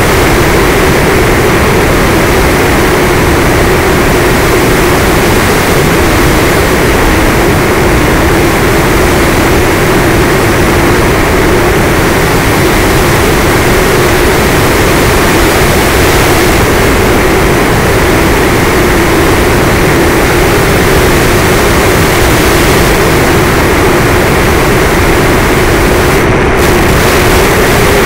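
Electric motor and propeller of a fixed-wing FPV plane running steadily at cruise, heard through the onboard camera, with a constant mid-pitched drone over loud wind rush.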